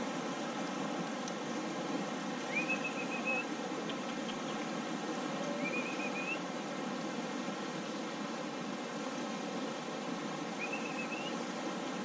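Fast-flowing river water rushing steadily. Three short, high whistles, each rising and then holding, sound over it: two in the first half and one near the end.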